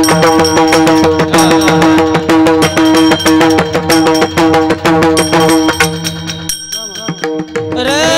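Instrumental passage of a Marathi abhang: fast hand-drum strokes over a steady held note. About six and a half seconds in the drumming thins out, and near the end a sustained melody line comes in.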